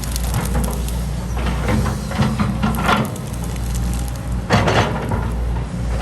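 Diesel engine of heavy earthmoving machinery running steadily, with bursts of scraping and clattering about two seconds in and again near the end as soil and rock are worked.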